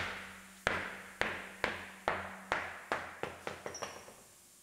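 A truck's wheel and tire, just taken off, dropped onto the concrete shop floor and bouncing several times. The knocks start about half a second apart and come quicker and fainter until they die out.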